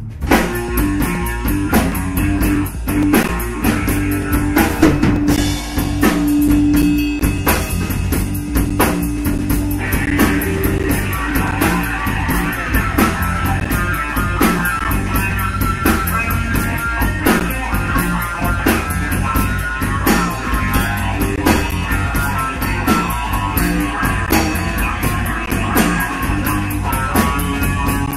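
Live blues-rock trio of electric guitar, bass and drum kit playing an instrumental stretch, the drums keeping a steady beat throughout. About ten seconds in, busier higher melodic lines come in.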